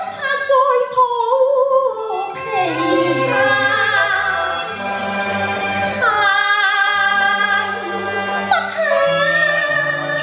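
A woman singing a Cantonese opera song, her voice gliding and wavering between notes in phrases, over an instrumental accompaniment holding steady low notes.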